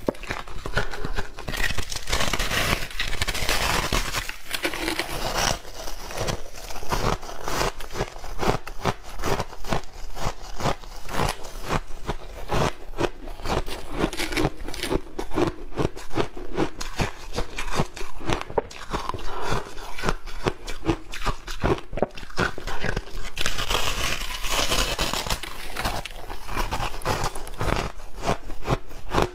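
Refrozen shaved ice crunching as it is bitten and chewed, with more of it crushed under gloved hands in the bowl: a dense, irregular run of crisp crunches and crackles, picked up close by a clip-on microphone.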